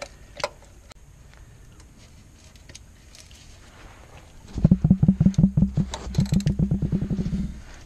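Ratchet spanner on the crankshaft pulley bolt clicking in a rapid, even run of about ten clicks a second, starting about halfway through and lasting some three seconds, as the diesel engine is turned by hand to walk the stretch-fit belt onto the pulley.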